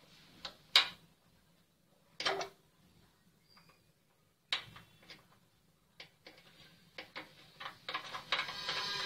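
Screwdriver working a screw on a gas stove's control valve: scattered sharp metal clicks and scrapes, the loudest just under a second in, coming more often toward the end. Near the end a steady sound with several held tones comes in.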